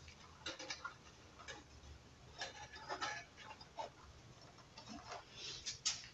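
Faint, irregular clicks and taps of the barn-door flaps on an LED panel light as they are swung open and handled, with a slightly louder click near the end.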